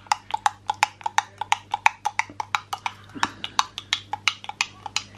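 A white spoon stirring melted butter and mica in a Pyrex glass measuring jug, clicking against the glass wall about three times a second in a steady rhythm.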